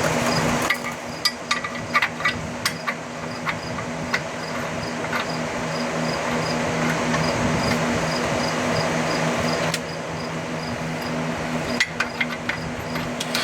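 Scattered sharp taps and knocks of tools on metal, clustered in the first few seconds and again near the end, over a steady low hum.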